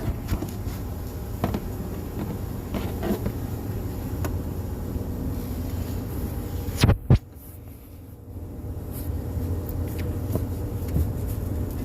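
Faint clicks and handling noises as a new rubber coolant hose is worked onto its fitting in the engine bay, over a steady low hum. Two sharp knocks come about seven seconds in.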